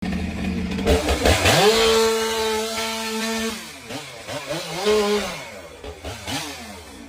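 Two-stroke chainsaw revved up to full speed about a second and a half in and held there for about two seconds. It then drops back and is blipped up and down a few times, easing toward idle near the end.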